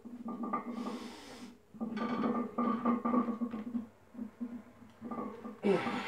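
A man breathing hard through barbell bench press reps, with two sharp hissing exhales, one about a second in and one near the end.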